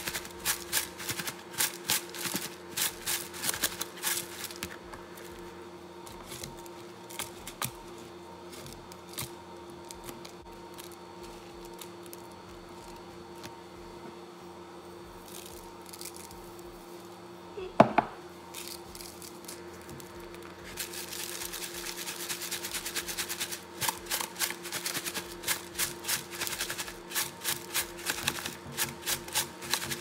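Pieces of salted fish and toasted rice powder being shaken and tossed in a plastic tub, a fast rattling patter, while the fish is coated with rice powder for fermenting. The rattling fills the first few seconds, gives way to a quieter stretch with a steady low hum and one short squeak a little past halfway, then comes back in quick pulses for the last third.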